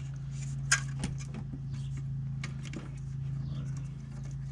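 Steady low machine hum with a few light metallic clicks and clinks of tools being handled.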